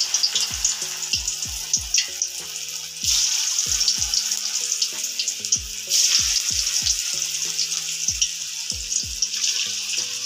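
Potato-and-spinach pakora batter deep-frying in hot mustard oil in a karahi, a dense crackling sizzle. The sizzle swells each time a fresh handful of batter is dropped in, about three seconds in and again about six seconds in.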